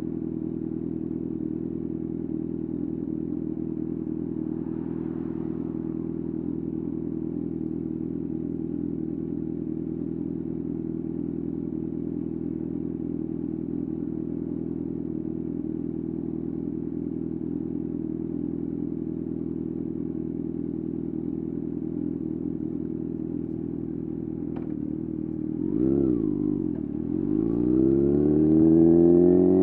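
Kawasaki ZX-6R's 600cc inline-four idling steadily. Near the end there is a short click, the engine pitch dips and rises once, then climbs steadily and grows louder as the bike accelerates away.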